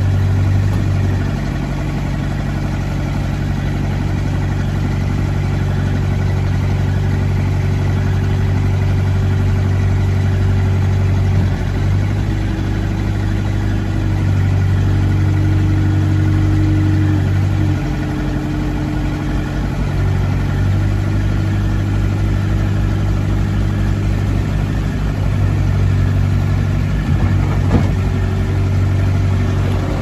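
The 2012 Bobcat S750 skid steer's 85 hp Kubota diesel engine running steadily. Its note shifts several times as the machine is driven and the loader arm raises and lowers the bucket.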